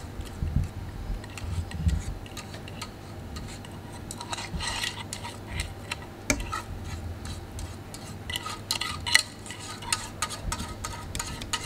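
Metal saucepan and kitchenware clinking and scraping as cheese sauce is poured out over nachos in a skillet: irregular light clicks and short scrapes, busiest about four seconds in and again near the end.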